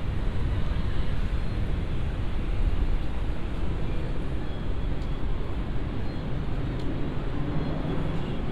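Busy city street ambience: a steady low rumble of traffic with a general wash of urban noise.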